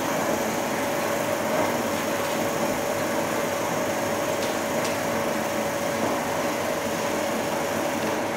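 16mm film projector running: a steady mechanical whir from its motor and cooling fan, with a constant hum.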